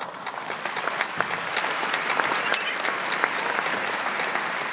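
Large audience applauding, many hands clapping at once: it breaks out suddenly, swells for a couple of seconds, then slowly dies down near the end.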